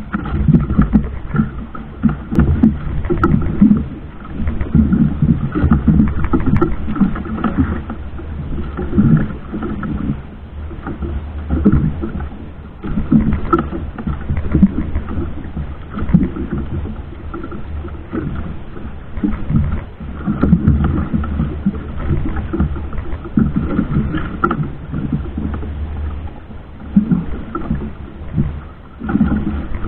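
Small fishing boat's engine running steadily at sea, with uneven surges of water and hull noise over it.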